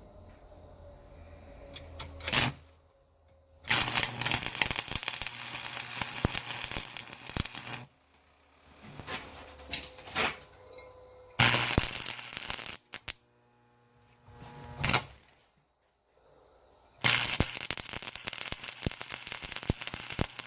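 Electric arc welding on steel: three runs of steady crackling, the first and last about four seconds each and a shorter one between, separated by pauses. There are short sharp cracks just before the first run and in the second pause.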